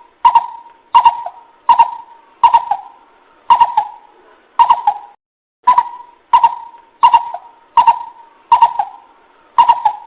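Coucal (bubut) call: a series of short hoots, about one every 0.7 seconds, with a brief pause about halfway through. It is a lure call, used to draw coucals in.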